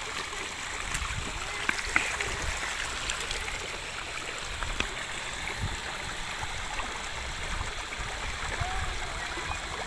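River water flowing steadily, a constant rushing, with a few faint clicks about two seconds in.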